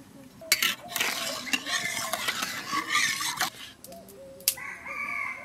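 A metal ladle stirring turmeric into water in an aluminium kadai, scraping and clinking against the pan for about three seconds, then a single sharp clink.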